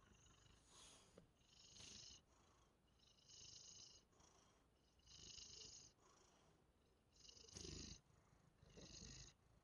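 Domestic cat purring softly, a raspy purr that swells with each breath, about every one and a half to two seconds, sounding almost like snoring.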